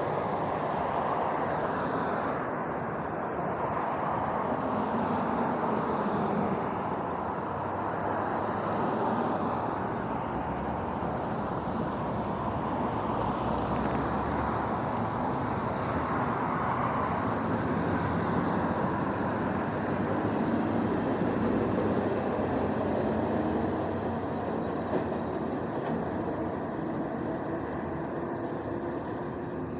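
Steady road traffic noise from cars driving past close by, a mix of tyre and engine sound that swells and eases gently as vehicles come and go.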